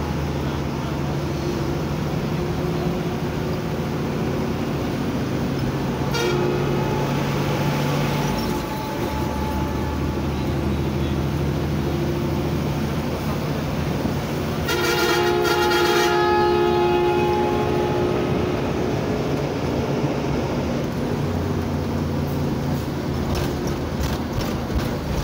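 Bus engine running as the bus drives along the road, with a horn sounding twice: a shorter blast about six seconds in and a louder one lasting over a second, about fifteen seconds in.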